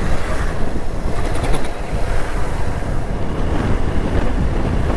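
Wind buffeting the microphone over a motorcycle running on a wet road as it speeds up: a steady, dense rush of noise.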